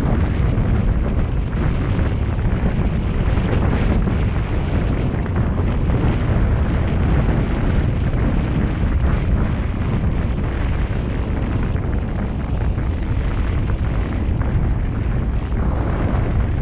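Road noise from a moving car heard on a GoPro: a steady, heavy low rumble of wind buffeting the microphone and tyres on asphalt.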